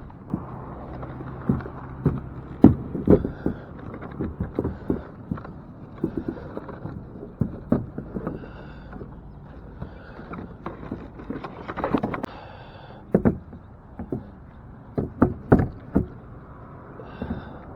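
Irregular knocks, clunks and thuds of fishing gear being handled and loaded into a kayak at launch, some hits sharp and loud, others soft.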